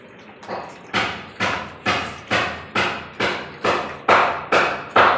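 Regular sharp knocks, about two a second, starting about a second in and growing louder.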